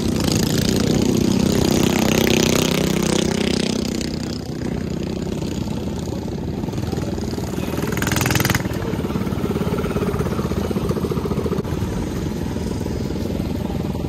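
Mini bike engines running and idling, loudest in the first four seconds, with a short louder burst about eight seconds in.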